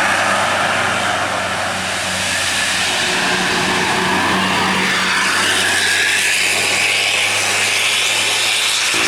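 Bus engine and road noise close by, steady and loud, with the engine note rising slightly about halfway through.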